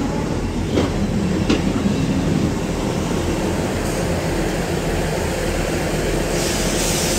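Class 158 diesel multiple unit running slowly past along the platform as it comes in to stop, a steady rumble from the train with two sharp clicks about a second in. A burst of hiss comes near the end.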